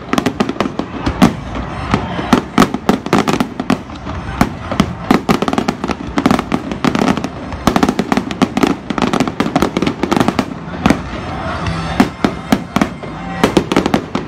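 Fireworks finale: aerial shells bursting in a rapid barrage of loud booms, several a second and often overlapping.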